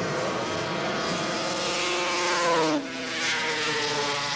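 Racing snowmobile engine running at full throttle on a grass drag strip, its pitch climbing for about two seconds. Near two-thirds of the way through the pitch and level drop suddenly, as the sled passes, then the engine runs on at a lower pitch.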